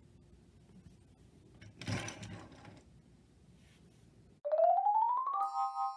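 A brief noisy burst about two seconds in. Near the end, a synthesized tone rises for about a second and settles into a held chord, a scene-transition sound effect.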